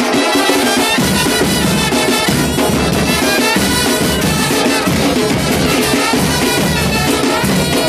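A band playing, with drums and percussion to the fore; a heavier bass and drum beat comes in about a second in.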